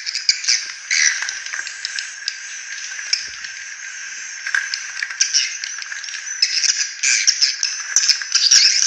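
Swiftlet lure call: a dense, rough chatter of twittering swiftlet calls with rapid clicks. It eases off in the middle and swells again near the end.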